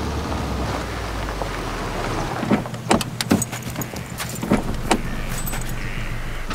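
A car's low steady rumble, then a run of sharp clicks and a light metallic jangle from about two and a half to five seconds in.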